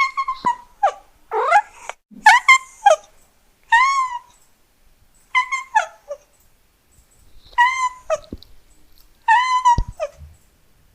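A cat meowing over and over in short, high-pitched calls that rise and fall in pitch. The calls come in small groups of one to four every second or two, and one longer arched meow comes about four seconds in.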